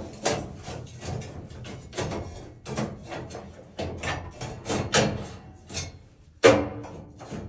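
Stainless steel sauna heater guard scraping and clanking as it is slid down into place over the heater stones, in a string of irregular clicks and scrapes with one sharp clank about six and a half seconds in.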